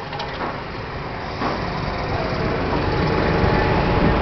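A motor vehicle engine running steadily, growing louder about a second and a half in and then holding.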